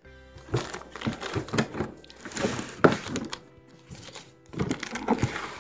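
Irregular knocks and rustling from things being handled, over background music.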